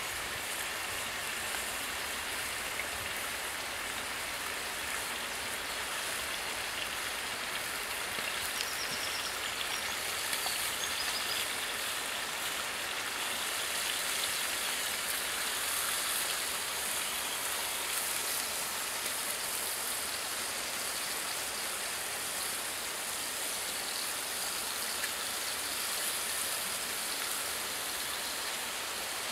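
Bacon frying in a cast iron pan: a steady sizzling hiss.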